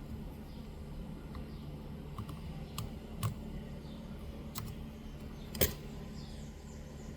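A handful of small, sharp clicks and taps from a tool picking dirt out of the corners of a phone's charging port, the loudest a little after halfway, over a steady low hum.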